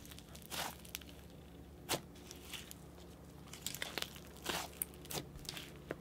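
Creamy butter fizz slime (butter slime mixed with snow fizz slime) squeezed and kneaded between hands, giving faint scattered crackles and a soft pop every second or so.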